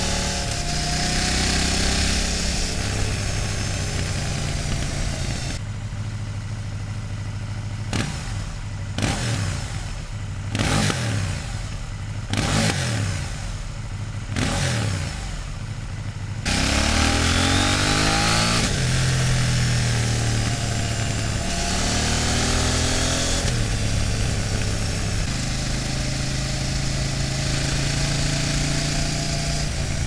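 KTM 790 Duke's LC8c parallel-twin engine through its stock exhaust, heard onboard: it pulls along with wind noise. From about six seconds in, with the wind gone, it is blipped up and down about five times while the bike stands still. About sixteen seconds in, it is back on the move, running steadily under load with wind rush.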